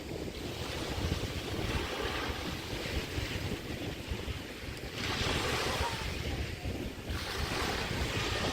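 Small bay waves breaking and washing up the beach in surges, the strongest about five seconds in and again near the end, over a constant low rumble of wind buffeting the microphone.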